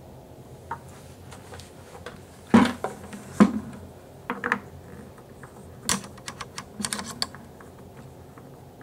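Irregular plastic clicks and knocks, loudest about two and a half and three and a half seconds in, from screwing a plastic connector onto a fitting set through the wall of a plastic 5-gallon bucket and tightening it to a seal.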